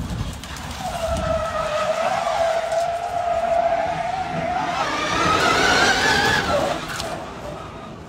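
Rally car running under electric power: a steady motor whine over tyre and road noise. The whine rises in pitch about five seconds in and drops away sharply near seven seconds.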